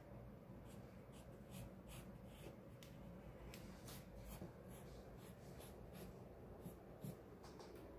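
Faint pencil scratching on paper in short, irregular strokes, with one soft knock near the end.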